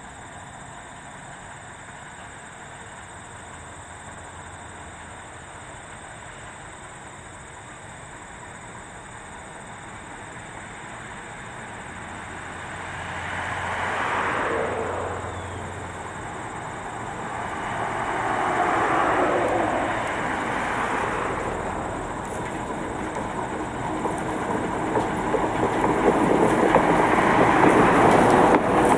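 Small diesel switcher locomotive hauling passenger coaches approaching along the track. Its engine and wheel noise grow steadily louder as it nears, with two swells partway through and the loudest stretch near the end.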